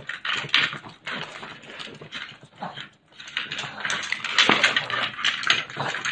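Pug sniffing and snuffling hard with its nose in a wooden treat-puzzle toy, in quick irregular breaths. There is a sharp knock about four and a half seconds in.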